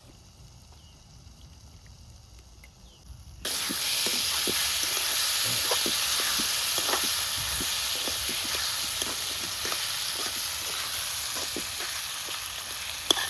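Food sizzling and frying in hot oil, starting suddenly about three seconds in as a loud steady hiss with many small crackles and pops.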